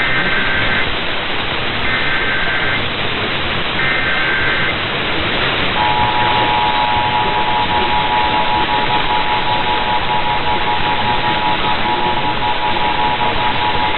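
Emergency Alert System tones received over AM radio through steady static hiss: three short screechy bursts of the SAME data header, then the two-tone attention signal (853 and 960 Hz) held steady for about eight seconds.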